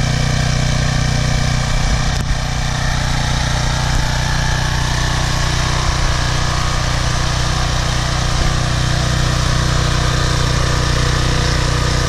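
Briggs & Stratton 190cc single-cylinder engine on a pressure washer running steadily at speed, its freshly cleaned carburetor keeping it going; the pump is turning with no water connected.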